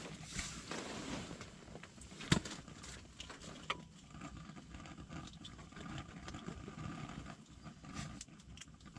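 Small handling noises as fingers work a hook and bait, with a sharp knock a little over two seconds in and a softer one about a second later, over a steady low background noise.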